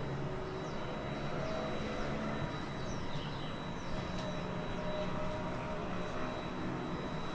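Steady hum and rush of a gas water heater running while a shower is in use.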